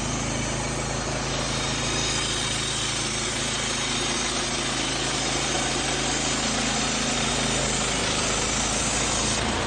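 Engine of a Woodland Mill portable bandsaw sawmill running steadily; its note changes about eight seconds in.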